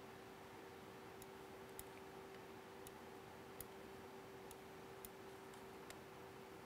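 Near silence: a faint steady hum with a few faint, scattered small clicks.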